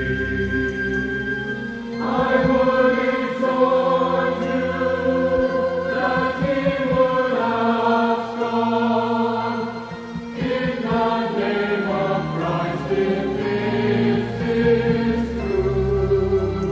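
A choir singing a slow sacred song, holding long chords that change every couple of seconds.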